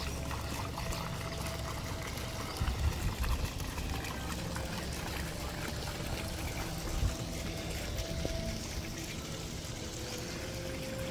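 Water from a small fountain spout splashing and trickling steadily into a concrete garden pond. A low rumble runs underneath, with a few soft bumps about a third of the way in.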